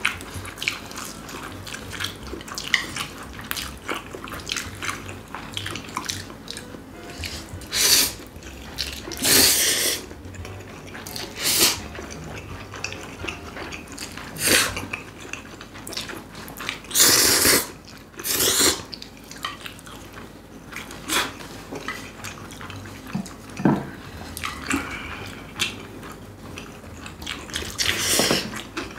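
Two people eating noodles: a run of loud, wet slurps, the longest a little past the middle, over chewing and chopsticks and spoons clicking against ceramic bowls.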